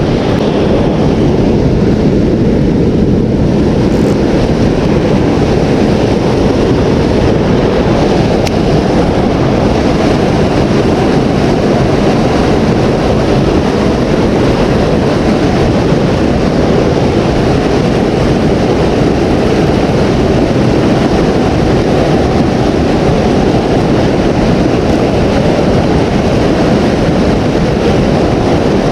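Steady, loud rushing noise of river water at a dam, mixed with wind on the microphone.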